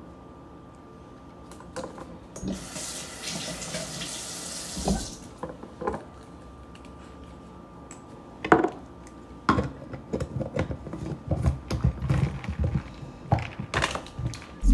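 Liquid pouring for a couple of seconds, then a string of knocks and clicks as a plastic water bottle and its screw lid are handled and closed on a counter.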